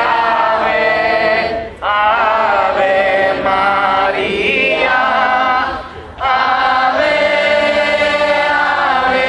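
Procession crowd singing a Marian hymn together, long held phrases with two brief breaks between lines, about two and six seconds in.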